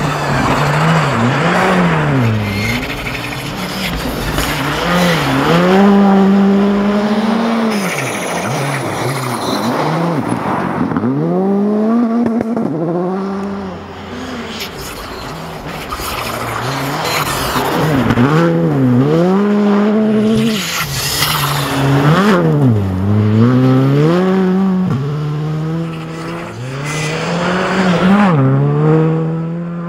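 Skoda Fabia R5 rally car's turbocharged 1.6-litre four-cylinder engine revving hard, its pitch repeatedly climbing and then dropping at each gear change, as the car drives past through snowy corners in several passes.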